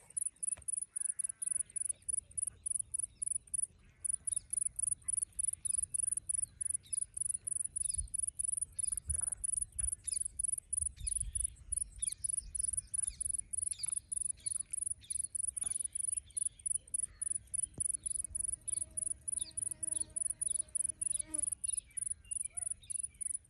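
High-pitched insect call in a field, a steady even pulse repeating several times a second without a break, with short bird chirps scattered over it.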